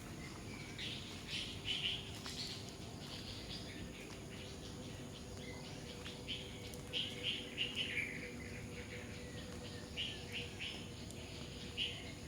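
Wild birds calling in quick runs of short chirps, three clusters of them: about a second in, around seven to eight seconds in, and near the end. A steady background hiss of outdoor ambience runs underneath.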